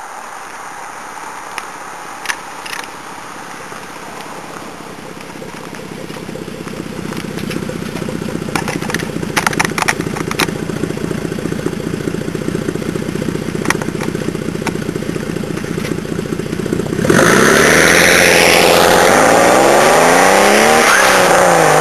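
Toyota Supra's twin-turbo 2JZ-GTE straight-six through a 3.5-inch VeilSide exhaust. It runs steadily at low revs with a few sharp crackles, growing louder over the first several seconds. About 17 seconds in it suddenly goes loud under hard acceleration, the revs climbing, dropping at a gear change and climbing again near the end.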